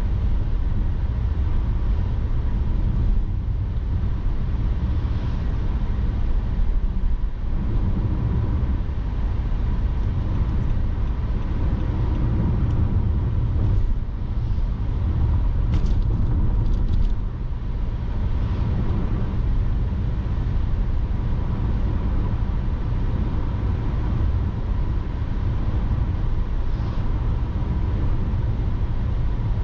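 Steady low rumble of a car on the move, engine and tyre noise as picked up by a dashcam.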